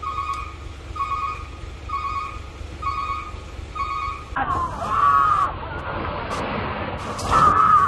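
A beep repeating about once a second, each about half a second long. About four seconds in it gives way to people shouting over vehicle noise, loudest near the end.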